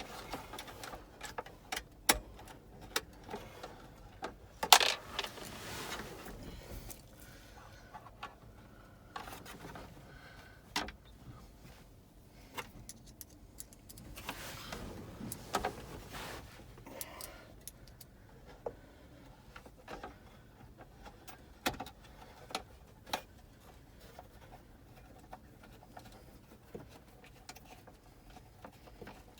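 Scattered small clicks, taps and rattles of screws, a screwdriver and plastic glove box parts being handled as a Chevrolet Silverado's glove box latch is screwed back in. There is a louder clatter about five seconds in and a brief rustle around the middle.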